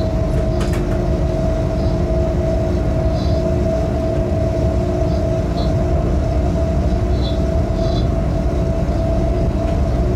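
Cab noise of a freight train locomotive running at speed on the main line: a steady low rumble with a constant mid-pitched hum. A few short high chirps and a couple of light clicks cut in over it.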